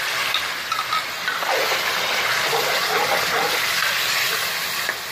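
Chicken, tomatoes and whole green chillies sizzling steadily in hot ghee in an aluminium pot, stirred with a metal spatula.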